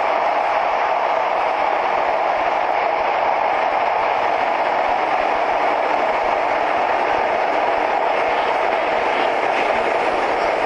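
Chennai Metro train running through an underground tunnel, heard from inside the carriage: a steady, even noise of wheels and running gear on the rails that never lets up.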